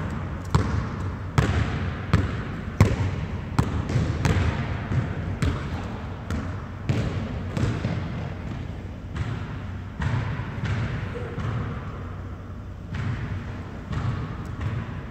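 Basketball dribbled on a hardwood gym floor: a steady run of bounces at about one and a half a second, each ringing briefly in the hall. The bounces are strongest in the first half and softer later, over a low steady rumble.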